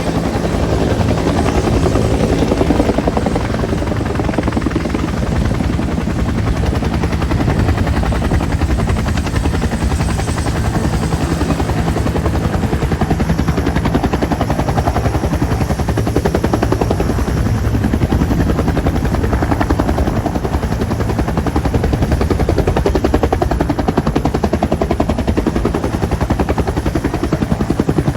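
Bell 212 helicopter running close by, its two-bladed main rotor chopping rapidly and evenly over the whine of its twin turboshaft engines, holding a steady loudness throughout.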